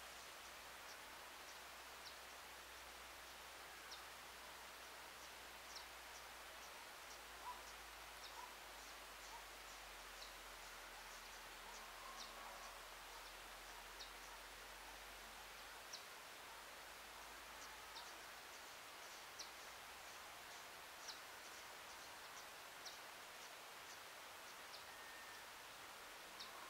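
Faint outdoor meadow ambience: a steady low hiss with short, high-pitched chirps or ticks scattered irregularly a second or two apart.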